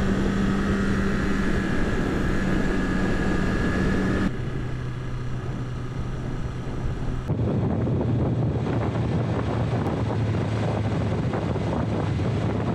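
BMW S1000RR inline-four engine running at a steady highway cruise, with wind and road noise. The sound changes abruptly twice, and after the first change, about four seconds in, the engine holds a lower steady note.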